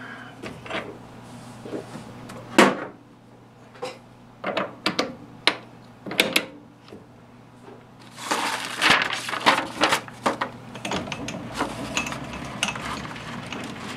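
Metal clicks and clanks of lathe tooling being handled and changed over to a parting tool, with a steady low hum underneath. The clicks are scattered at first and come thick and fast in the second half.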